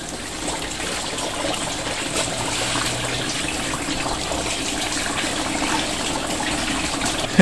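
Tap water from a garden hose running steadily into a car radiator's filler neck, splashing and gurgling as it flushes the old coolant out through the cooling system.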